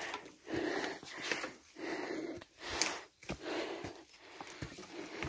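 Heavy, rhythmic panting breaths close to the microphone, from a hiker out of breath on a steep climb up wooden trail steps, with a few footfalls between breaths.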